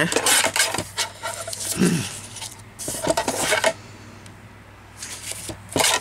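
Paper and card being handled and slid about on a craft table: rustling and scraping in a few short bursts, with light knocks.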